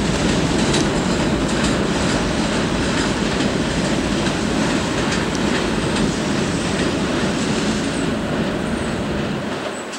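Kawasaki R68A subway train pulling away along elevated track, its wheels running over the rails with a light clickety-clack. The sound fades over the last couple of seconds as the train draws off.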